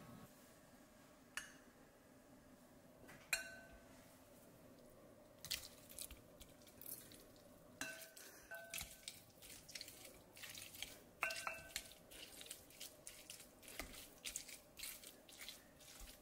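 Scattered light taps and clinks of kitchen utensils against a glass bowl, a few of them ringing briefly. They come more often from about five seconds in.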